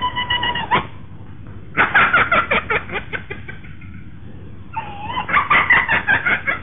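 Animal-like cries: a short held, cat-like wail ending just under a second in, then two runs of rapid, dog-like yapping, the second near the end.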